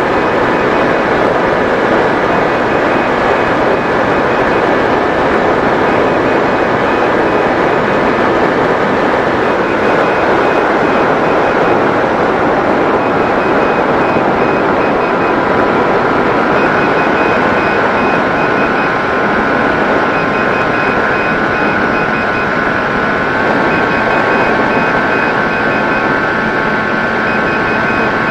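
Electric motor of a Mini Drak 90 cm RC model aircraft running in flight under a steady rush of wind and airflow noise. The motor's whine drops a step about 10 seconds in and rises a little about 17 and 23 seconds in as the throttle changes.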